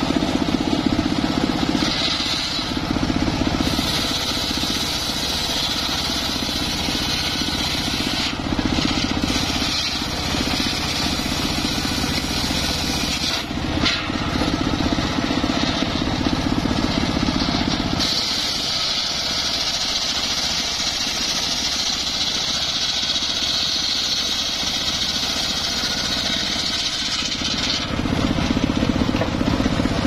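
Homemade engine-driven circular saw bench running steadily while acacia wood is ripped into beams. A high hiss of the blade cutting comes in several passes of a few seconds each, the longest in the second half.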